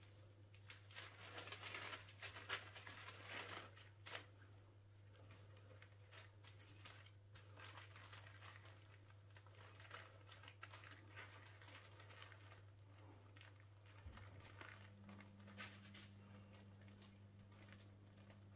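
Faint crinkling and rustling of baking parchment and a cotton tea towel as a sheet of sponge cake is rolled up in the towel, busiest in the first few seconds, then sparse soft crackles. A low steady electrical hum runs underneath.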